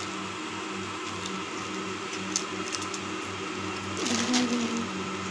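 A steady mechanical hum, with the crinkle of a plastic chips packet being handled by a monkey as it eats, coming as a short, louder crackly burst about four seconds in.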